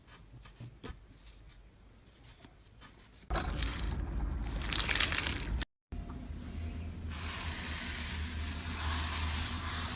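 Slime being handled by hand: faint sticky clicks at first, then louder wet squishing and crackling from about three seconds in. After a brief cut near the middle comes a steadier soft hiss of slime being worked.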